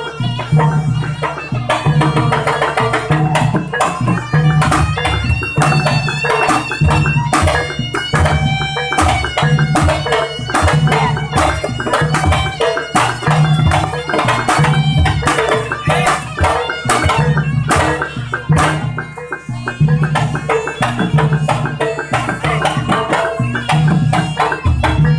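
Javanese jaranan ensemble music: kendang hand drums beating fast and densely, under a wavering, wailing slompret (reed trumpet) melody, with low gong tones repeating in a steady cycle.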